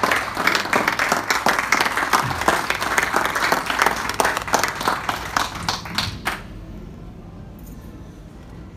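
A roomful of people applauding, many hands clapping at once, stopping abruptly about six seconds in.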